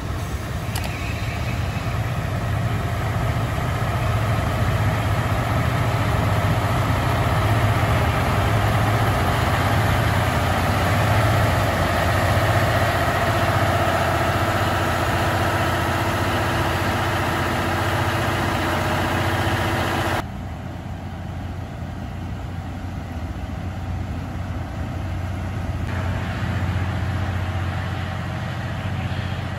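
KiHa 183 diesel railcar engine running steadily at idle, a low hum with a steady mid-pitched drone over it. About twenty seconds in, the higher part of the sound drops away suddenly and only the low hum carries on.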